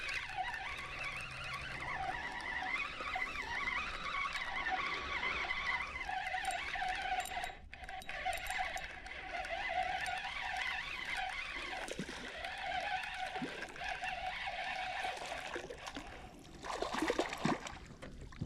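A spinning reel being cranked as a hooked fish is played on a bent rod. A few splashes of the fish at the water's surface come near the end.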